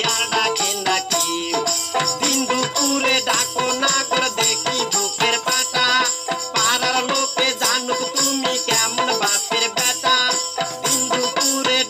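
Bengali folk music: a plucked long-necked lute carries the melody over a small hand drum and a steadily shaken jingle tambourine, making a busy, rattling rhythm.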